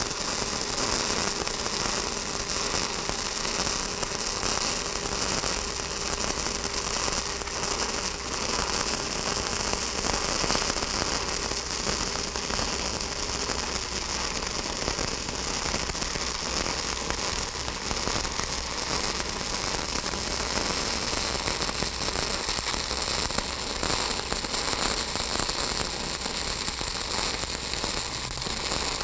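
E6010 stick-welding arc on a 1/8-inch rod running a root pass, stitched back and forth along the joint: a steady, dense crackle and hiss. This is the 'torch noise' kept up all the way down the joint, the sign that the root is penetrating.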